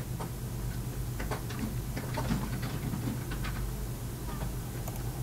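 Scattered light clicks of a computer mouse, a few at irregular intervals, over a steady low electrical hum.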